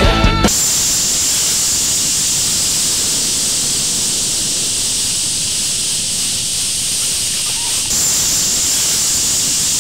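Rock band music cuts off about half a second in and gives way to a steady hiss like television static, which steps slightly louder about eight seconds in.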